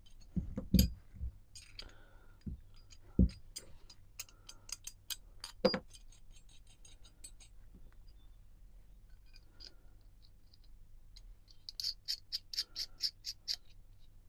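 Small metal parts of a vintage Preston's spoke shave being put back together by hand: scattered clicks and knocks of metal on metal and on the work mat, with a few louder knocks in the first half. Near the end comes a quick run of light ticks as the adjuster nut is turned on its threaded stud.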